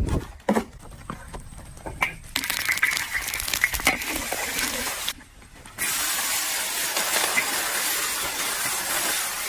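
A few scattered clicks and knocks, then food frying in hot oil in a pan: a crackling sizzle starts about two seconds in, breaks off briefly in the middle, and comes back as a steady sizzle.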